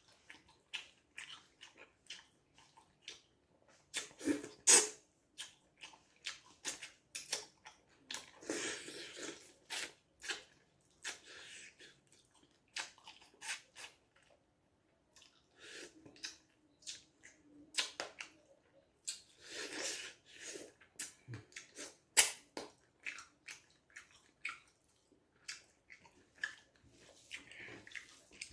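Hands working food in water in a kitchen: irregular clicks and knocks with short wet swishes and sloshes, the longest about eight seconds in and again near twenty.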